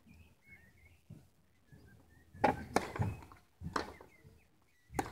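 Tennis ball struck by rackets during a rally on a clay court: sharp hits, the loudest two close together about two and a half seconds in, then another about a second later and one more near the end.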